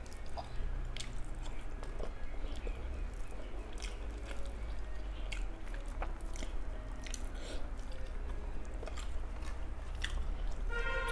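Close-miked chewing and mouth sounds of a person eating rice and curry, with scattered small clicks and smacks over a steady low hum.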